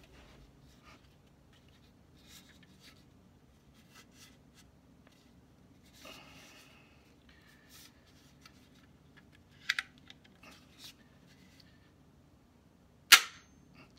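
Flintlock lock of a Traditions blunderbuss kit gun worked by hand: a quiet double click a little under ten seconds in as the cock is drawn back, then one loud, sharp metallic snap near the end as the trigger releases the cock in a dry fire. Soft handling of the wooden stock runs underneath.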